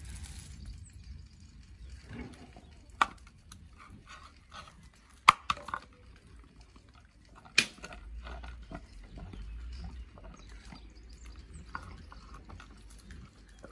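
A dog snuffling and chewing, with many small clicks and three sharp cracks, the loudest about five seconds in.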